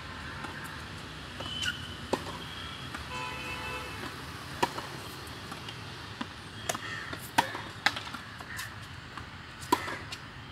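Tennis balls being hit with a racket and bouncing on a hard court: a series of sharp, irregularly spaced impacts.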